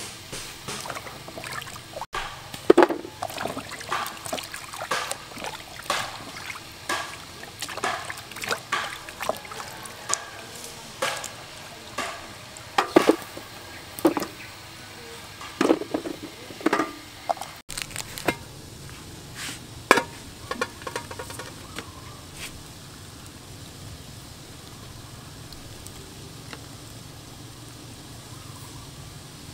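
Irregular knocks and clatter of raw cassava pieces being set into an aluminium steamer pot, striking the metal and each other. About two-thirds of the way through this gives way to a steady low rushing noise with only a few knocks.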